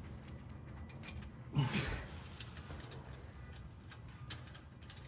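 A few light metallic clicks and taps as a V-band exhaust clamp is worked by hand around a flex coupler. There is a short low vocal sound, falling in pitch, about one and a half seconds in.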